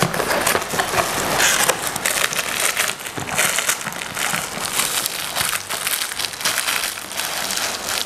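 Plastic packaging crinkling and a cardboard toy box being handled as it is opened: an irregular run of small crackles and rustles.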